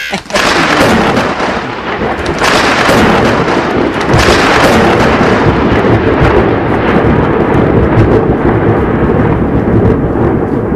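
Loud rolling thunder sound effect: a long, dense rumble that swells about two and a half and again about four seconds in, then holds steady.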